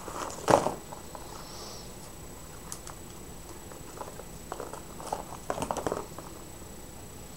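Plastic packaging crinkling and rustling as hands handle a bubble mailer and earphone cable: one loud crackle about half a second in, then a cluster of crackles near the end. A faint steady high-pitched whine sits underneath.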